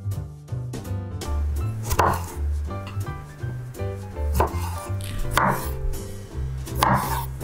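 Kitchen knife cutting cherry tomatoes in half on a wooden cutting board: four short cuts, irregularly spaced, over background music.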